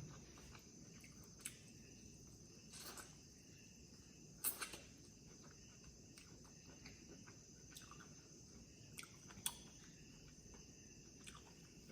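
Faint eating sounds close to the microphone: scattered soft mouth clicks and bites, the loudest about four and a half seconds in, over a steady high-pitched drone.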